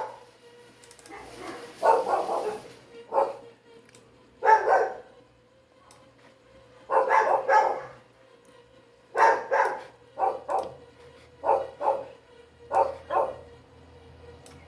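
A dog barking in short bursts throughout, many of the barks coming in pairs about half a second apart.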